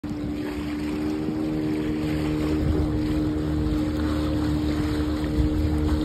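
Motorboat engine running steadily underway, a constant-pitched hum over a low rumble, with a hiss of wind and water.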